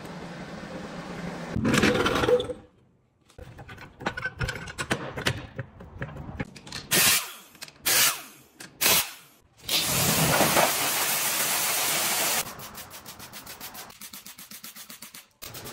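Workshop sounds in quick succession: three short bursts from a pneumatic impact wrench loosening the wheel bolts about halfway in, then a steady hiss for a couple of seconds, then a fast, even ticking.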